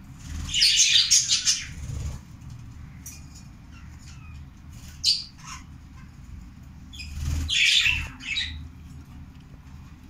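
Budgerigar hen on her eggs giving two harsh, raspy squawks, one of about a second and a half near the start and another about seven seconds in, with a short sharp sound between them. It is the typical defensive scolding of a sitting hen at a hand near her nest.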